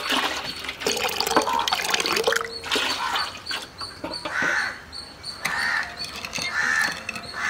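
A steel spoon stirring red food colouring into milk in a glass bowl, the liquid swishing. In the second half there is a short sound about once a second.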